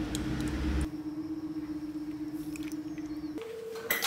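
A steady machine hum that shifts to a higher pitch about three and a half seconds in, with a low rumble in the first second and a short knock near the end.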